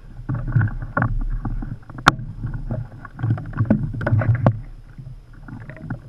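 Irregular knocks and thumps on the hull and deck of a Hobie Adventure Island kayak as a person moves about and clambers forward on it, with one sharp click about two seconds in, settling down near the end.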